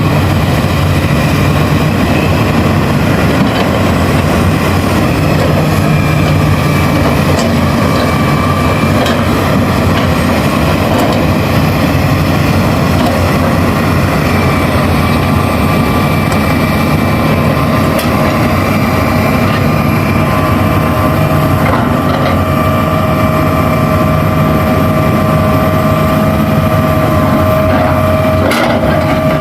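Diesel engines of large Hitachi hydraulic excavators running steadily under working load. A steady higher whine joins about two-thirds through, and there are a few short knocks.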